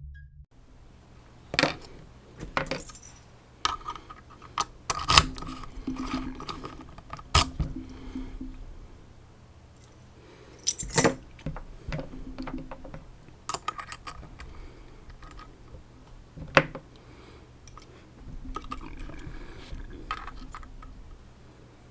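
Metal clinking and jangling as a dimple lock and small steel pieces are handled: scattered sharp clicks with brief ringing, the loudest about halfway through.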